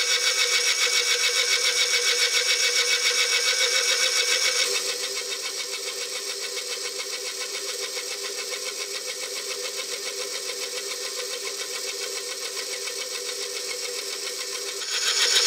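Matsson Zetterlund VF600 milling machine face-milling a cast iron part: the cutter runs steadily through the cut with a fast, even rhythm of tooth strikes. The sound drops quieter about five seconds in and comes back up near the end.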